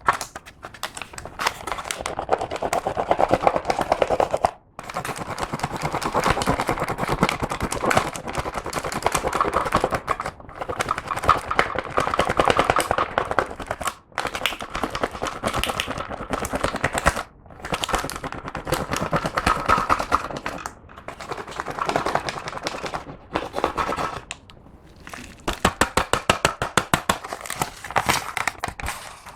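Clear slime being squished and kneaded by hand, giving dense crackling and popping clicks from trapped air, in stretches broken by a few brief pauses.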